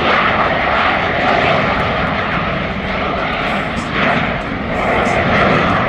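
Jet engines of two F/A-18 Super Hornets flying a slow, nose-high high-alpha pass: loud, steady jet noise that swells and eases slowly.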